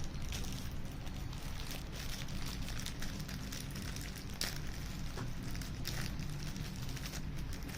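Cooking sizzle with scattered crackling over a steady low rumble.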